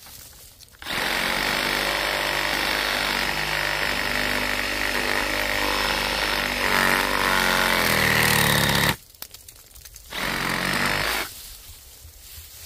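Bauer 20V brushless compact reciprocating saw with a 9-inch Diablo pruning blade cutting through the trunk of a sapling at ground level, running for about eight seconds with its pitch shifting as the blade works through the wood. It stops, then runs again in one short burst about a second later.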